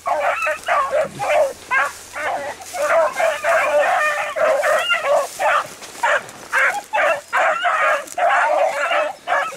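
A pack of four beagles baying in a rapid, overlapping run of short calls as they drive a rabbit along its scent trail.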